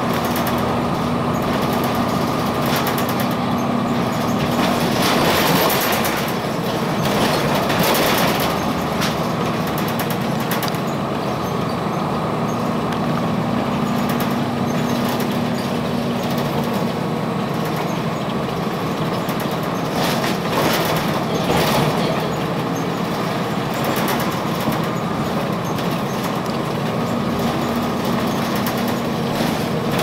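Inside a 2002 Blue Bird CS transit bus under way: its Cummins ISC inline-six diesel and Allison B400R automatic transmission drone steadily over road noise, with a steady tone that comes and goes. Louder, rattly stretches come about five to nine seconds in and again around twenty seconds.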